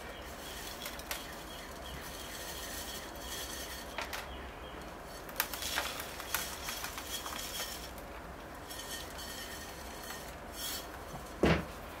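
Gritty bonsai soil mix with fir bark pieces being poured from a metal scoop into a pot, a soft trickling hiss with light clicks and clinks of the grains against the scoop. A sharper knock comes near the end.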